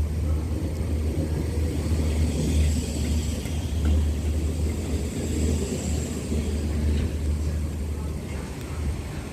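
Class 313 electric multiple unit running through the station without stopping: a steady low rumble that eases off slightly near the end.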